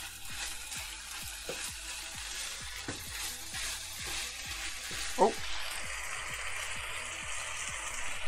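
Ground beef, rice and bell peppers sizzling in a frying pan while being stirred with a spatula, the repeated strokes scraping through the food against the pan.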